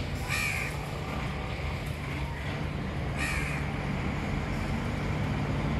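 Two short, harsh bird calls about three seconds apart, over a steady low rumble.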